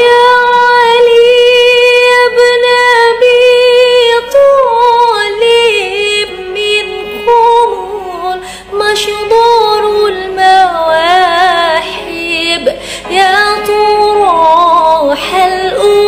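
A woman singing sholawat (Islamic devotional song) solo. She holds one long note for about the first four seconds, then sings ornamented, wavering melodic runs with short breaks for breath.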